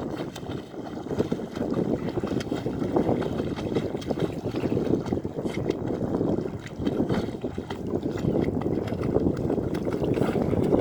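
Sea water sloshing and splashing close to the microphone, swelling and ebbing irregularly, with wind buffeting the microphone.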